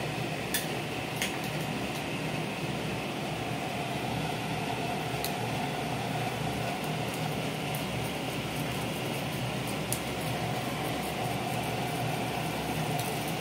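Hot oil sizzling in a non-stick frying pan as whole pompano are laid in with metal tongs, over the bubbling of a pot of boiling shrimp. A few light clicks of the tongs against the pan.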